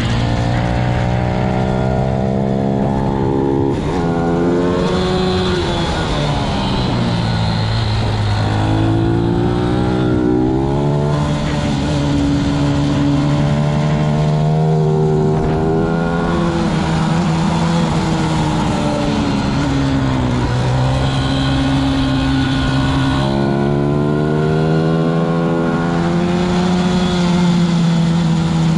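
Pit bike's single-cylinder four-stroke engine heard close up from the bike at racing speed, its revs climbing in steps through gear changes and dropping several times for corners, over a steady rush of wind.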